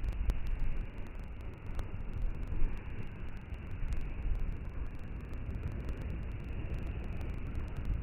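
Wind buffeting the microphone outdoors in a snowstorm: a steady, gusting low rumble with a faint hiss, and a few faint clicks.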